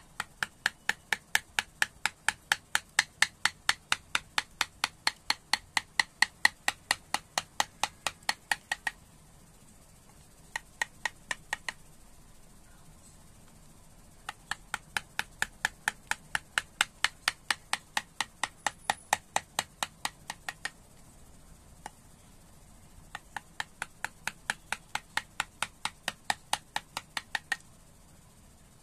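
A wood-carving chisel driven by rapid light mallet taps, about four or five sharp taps a second, in four runs with pauses of one to two seconds between them.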